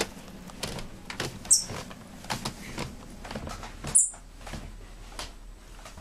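Pet squirrel giving two short, high-pitched bird-like chirps about two and a half seconds apart, over scattered clicks and rustling.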